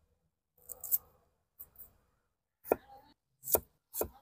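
A large kitchen knife scraping the skin off a piece of ginger, then cutting it on a thick wooden chopping block, with three sharp knocks of the blade on the block in the second half.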